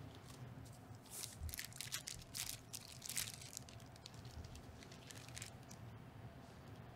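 Faint crinkling and rustling of a plastic sterile probe cover as a gloved hand handles and repositions the covered ultrasound probe: a quick run of short crinkles starting about a second in and lasting about two seconds, with a few softer ones later.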